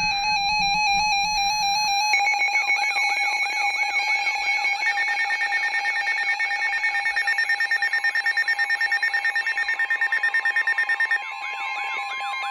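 Several weather alert radios sounding their alarms at once, ahead of a severe thunderstorm warning. Overlapping steady tones, beeps and repeating chirps; more alarms join about two seconds in, and a fast pulsing beep runs until about 11 seconds in, then stops.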